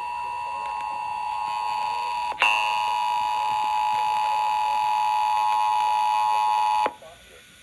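Weather-radio emergency alert tone: a steady electronic tone heard through a radio receiver, which signals that a warning message follows. It jumps louder with a click about two and a half seconds in and cuts off abruptly near the end.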